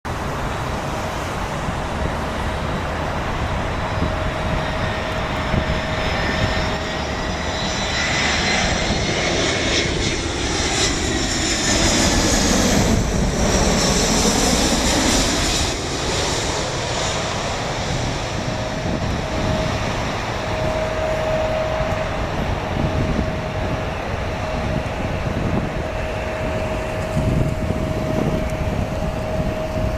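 Airbus A319's CFM56 jet engines on landing approach, passing low overhead: the whine and rumble build to their loudest about halfway through, the pitch dropping as the plane goes by, then settle back into a steady rumble.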